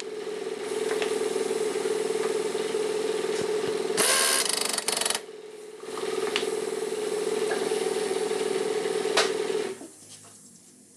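Power tool, likely an impact wrench on the rear suspension mounting nut, running with a steady hum. There is a louder hissing burst about four seconds in and a brief dip just after. It cuts off near the end.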